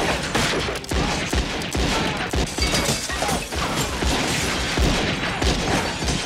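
Gunfire from several revolvers: a steady barrage of sharp shots, about two a second.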